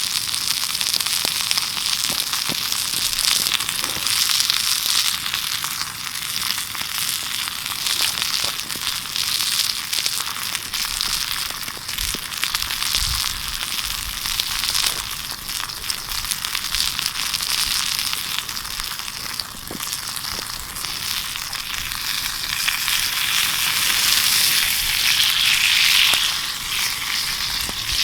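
Elk steaks sizzling in a hot frying pan: a steady hiss with scattered crackles of fat spitting.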